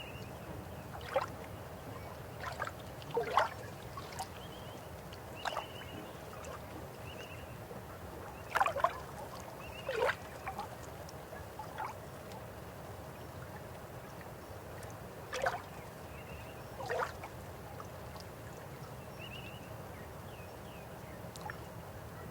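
River water flowing with a steady rush and about ten irregular, sharp gurgles and plops as water spills over stones.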